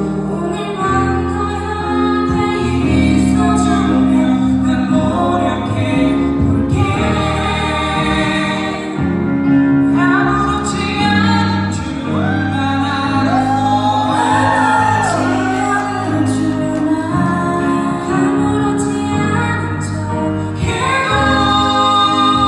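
Live band performing a slow pop ballad: vocalists singing over keyboard and electric guitar, with a run of wavering sung notes about halfway through.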